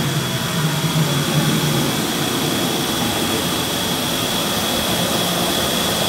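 Water-store bottle sanitizer spraying into an empty 5-gallon plastic water jug: a steady rushing hiss with a thin, constant high whine, switched on at the start.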